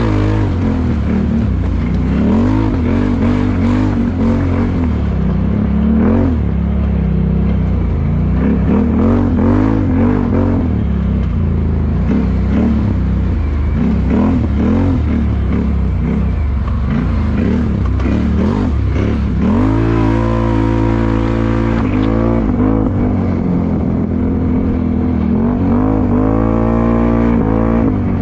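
ATV engine revving hard and repeatedly, its pitch swinging up and down as the wheels spin and fling mud. Twice in the second half it climbs steadily in pitch as the quad accelerates.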